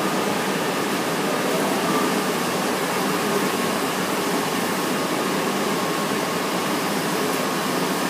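UV curing machine running: a steady rushing hum from its cooling fans and conveyor, with a faint even tone through it.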